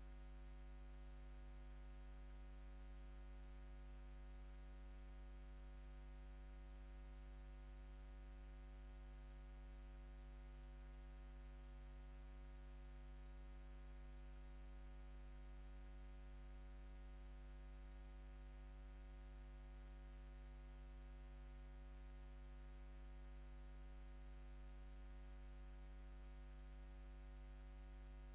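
Near silence: a steady low hum with a faint hiss, unchanging throughout.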